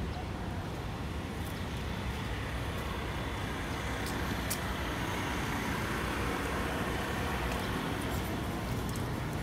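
Steady road traffic noise, swelling a little about halfway through as a vehicle passes.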